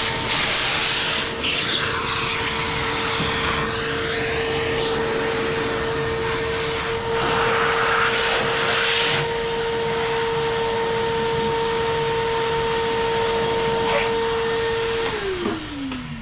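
A high-speed shop motor runs with a steady whine over a rushing hiss that swells and eases as it works. Near the end it is switched off, and the whine falls away as the motor spins down.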